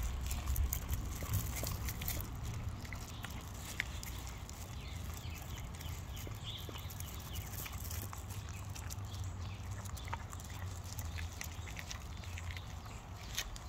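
A dog licking peanut butter off plastic wrap stretched over a canvas: a steady run of quick wet licks and small clicks, over a low rumble.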